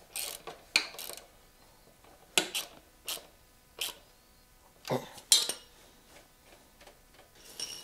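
Small metal parts of a motorcycle rear drum brake linkage clinking and scraping as the brake rod and its adjuster hardware are handled and refitted to the brake arm by hand: a string of short, irregular metallic clinks.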